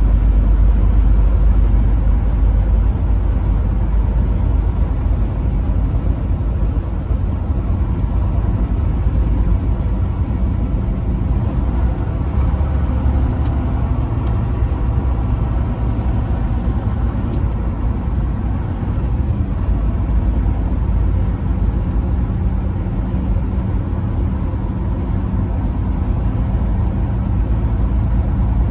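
Truck driving on the road: a continuous low rumble of engine and road noise at a steady pace.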